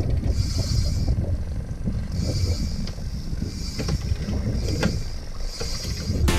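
Fishing boat on open sea: a steady low rumble of the hull and water, with short hissing washes every second or two and a few light knocks.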